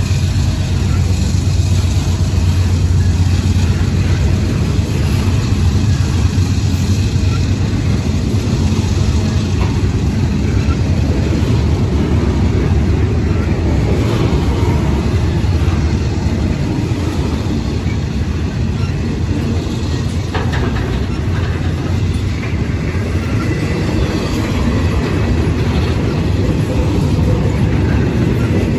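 Intermodal freight train's cars rolling past at close range: a loud, steady rumble of steel wheels on rail, with a low hum that is strongest over the first several seconds.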